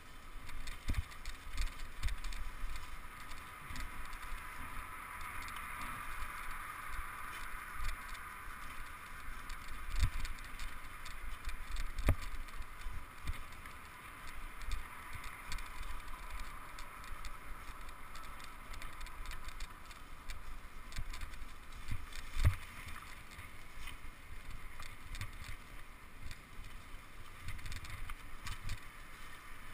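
Bicycle ridden along a dirt forest trail: tyres rolling over leaf litter and bumps, with the bike rattling and a few harder jolts, the strongest about ten, twelve and twenty-two seconds in.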